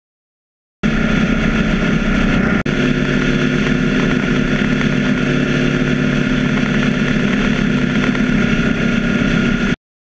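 BMW R 1200 GS boxer-twin engine running at steady motorway cruising speed, with wind and road noise. It starts abruptly about a second in, drops out for an instant about two and a half seconds in, and cuts off abruptly near the end.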